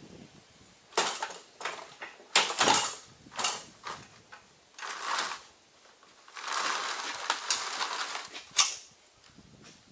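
Snow-bike track kit, a rubber track on its metal frame, being pulled off a dirt bike and dragged over a concrete floor: a string of scrapes and clanks, then a longer scrape of about two seconds near the end that finishes on a sharp clank.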